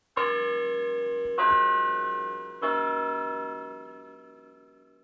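Three bell chimes struck in turn about a second and a quarter apart, each on a different note and ringing on, the last fading out over about two seconds.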